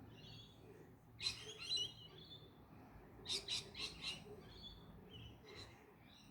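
Magpie calling in two harsh, scratchy bursts, one about a second in and a longer run of several quick calls around three seconds in, with fainter calls in between.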